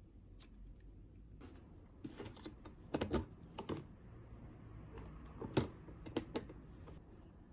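A run of sharp hard-plastic clicks and knocks from a small lidded plastic trash bin being handled, its lid flipped open and pressed shut. The clicks come in a cluster about three seconds in and again about a second and a half before the end.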